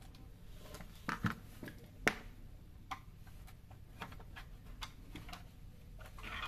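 Light clicks and knocks of plastic and sheet-metal parts being handled and pushed together as a sandwich toaster's switch is worked into its housing, with a couple of louder knocks about a second in and at about two seconds.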